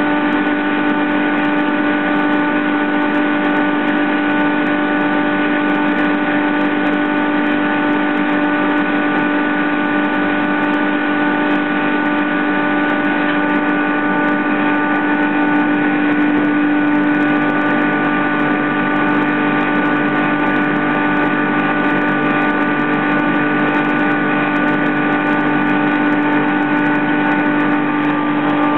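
Sandblasting cabinet running while glass is blasted: a loud, steady hiss of the compressed-air abrasive blast over a constant machine hum.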